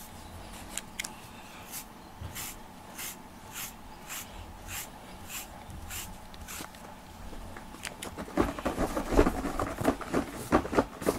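Grooming brush stroking through a cat's coat in short, even strokes, about three every two seconds. From about eight seconds in, a louder scratchy scrubbing takes over as fingers rub the shed fur off a foam floor mat.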